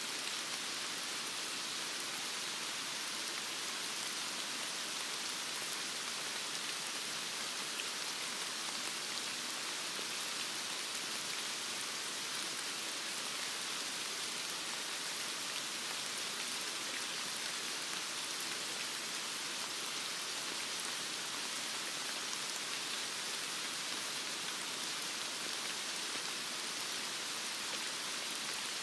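Heavy rain falling steadily: an even hiss with the patter of drops, unchanging throughout.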